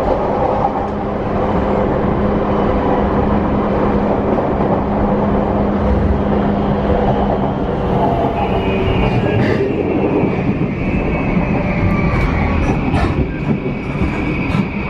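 E235-0 series electric train with a silicon-carbide VVVF inverter, heard from inside a passenger car while running: steady wheel-on-rail rumble under a low motor and inverter hum. About eight seconds in, a high steady tone comes in and holds. Near the end, a run of sharp clicks comes from the wheels passing rail joints.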